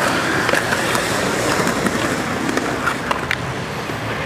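Skateboard wheels rolling over rough concrete, a steady rumble with a few light clicks.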